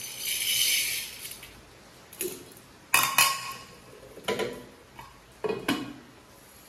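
Dry moong dal poured from a glass jar into a pressure cooker: a short hiss of lentils pattering into the pot. Then several sharp clinks of a spoon and metal vessels, the loudest about three seconds in.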